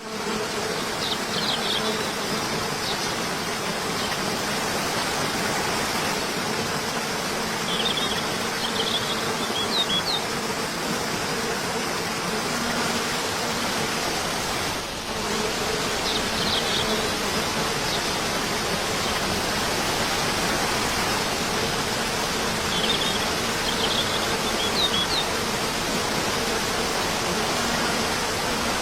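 Waterfall rushing steadily, with a few faint, brief high chirps over the water.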